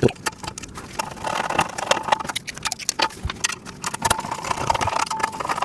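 Rapid clicking and light metallic knocks of screws and steel frame parts being handled and fastened together during assembly of a steel welding table.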